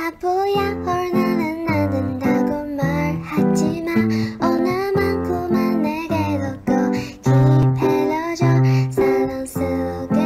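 Background song: acoustic guitar strumming in a steady rhythm under a singing voice.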